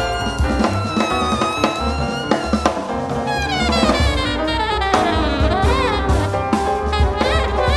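Small jazz band playing live: alto and tenor saxophones over piano, double bass and drum kit. From about three seconds in, the horn lines turn into quick, wavering runs.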